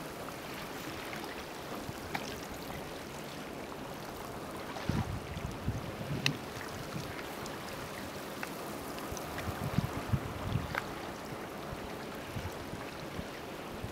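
Steady wash of the sea on a rocky shore with water trickling, dotted with small scattered ticks and pops. A few low wind buffets hit the microphone around five and ten seconds in.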